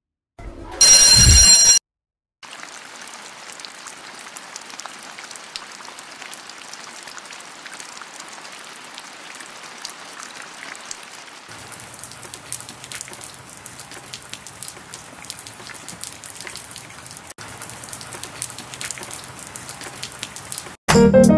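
Heavy rain falling steadily, a dense patter of drops, with a lower rushing sound added about halfway through. Before it, about a second in, a brief loud electronic tone is the loudest sound.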